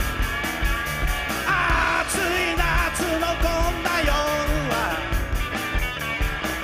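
Live rock-and-roll band playing loudly: electric guitars over a steady drum beat. About a second and a half in, a singer comes in with a sung, partly shouted line with sliding pitch that lasts until about five seconds in.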